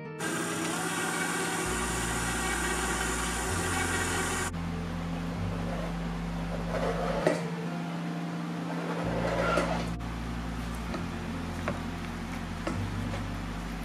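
KitchenAid stand mixer motor running steadily for about four seconds, then cutting off abruptly. This is followed by a couple of scrapes and light knocks as chopped chocolate is scraped off a plastic cutting board into the steel mixing bowl.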